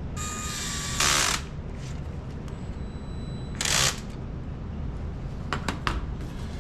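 Small electric screwdriver running in short bursts, a brief whine then a loud spell about a second in and another just before four seconds, driving screws back in to refit a link. A few light clicks follow near the end.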